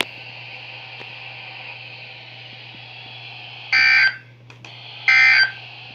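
Midland WR-120EZ NOAA weather radio speaker with a steady hiss and low hum. About two-thirds in come two short, shrill data bursts about a second and a half apart: the SAME end-of-message (EAS end) tones that close the alert broadcast.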